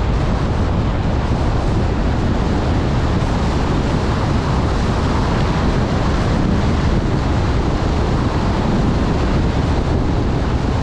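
Loud, steady wind rushing over the camera's microphone during a fast ski descent, mixed with the hiss of skis running over packed snow.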